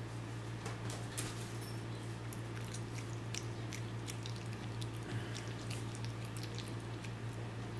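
A cat chewing a piece of raw meat, with many short, irregular clicks, over a steady low hum.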